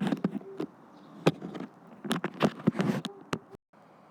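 Bird seed rustling and pattering in a measuring cup, with a series of sharp knocks and clicks from handling it.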